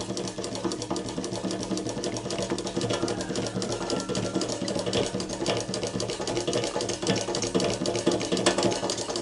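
Small pump drawing gasoline out of a portable generator's fuel tank, running with a steady, rapid, even clatter.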